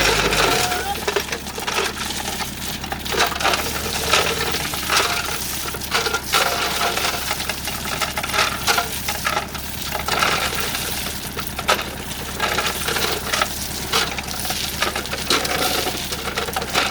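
Repeated sharp metallic clinks and rattles over a steady low engine hum. A louder low rumble cuts out about half a second in.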